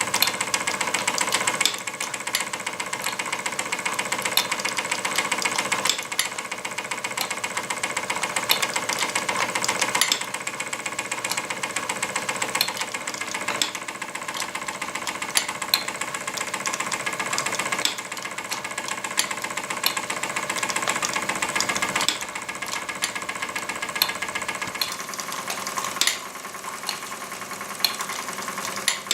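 Wilesco D16 toy live-steam engine running and driving a tin Doll & Fleischmann blacksmith accessory by pulley: a steady, fast mechanical clatter of small ticks, with a louder click every few seconds.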